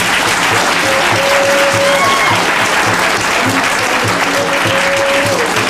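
Audience applauding, a dense clatter of clapping, over background music with a steady beat.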